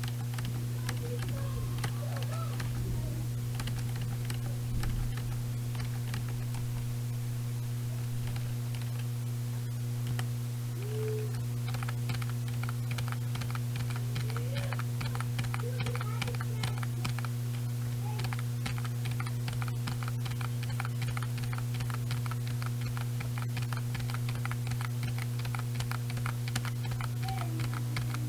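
Computer keyboard being typed on: a fast, continuous patter of keystroke clicks that gets busier in the second half, over a steady low electrical hum.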